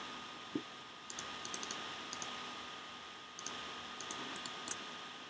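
Light clicks of a computer mouse and keyboard, coming in quick little runs about a second in, near the middle and through the second half, over a faint steady hiss.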